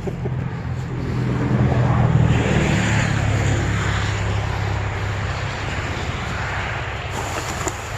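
Vehicle engine driving off at low speed, growing louder over the first two seconds as it accelerates, then easing off slowly.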